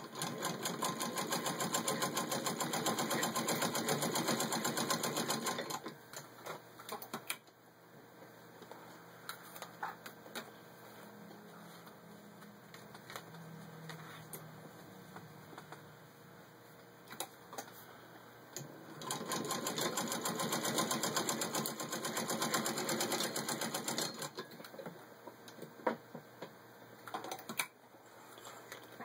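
Hand-cranked 1919 Singer 66-1 sewing machine stitching through six layers of denim at speed: two runs of rapid, even ticking, each about five seconds long, one at the start and one about two-thirds of the way in, with a few scattered clicks between them.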